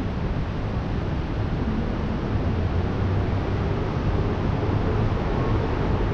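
Steady wind rumbling and buffeting on the microphone.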